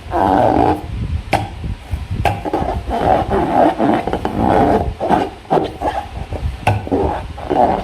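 Slime being squeezed and worked by hand, giving irregular wet squelches with a few sharp clicks and pops.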